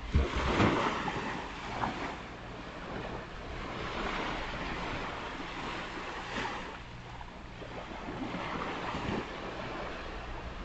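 Ocean surf breaking and washing up a beach in repeated swells, with wind buffeting the microphone, loudest in a gust right at the start.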